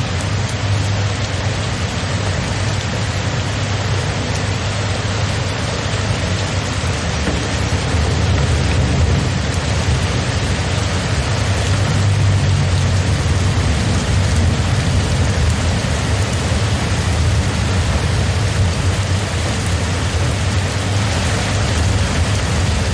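Steady heavy rain, an even hiss with a constant low rumble underneath.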